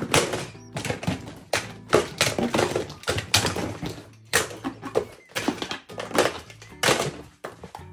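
Plastic and rubber toy shark figurines dropped one after another into a cardboard box: a fast, irregular run of thunks and clatter as they land on the cardboard and on each other.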